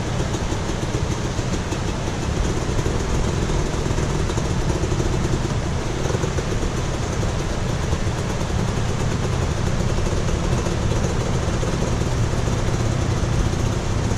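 Two-stroke 300 enduro dirt bike engine idling steadily, over the steady rush of a rocky creek.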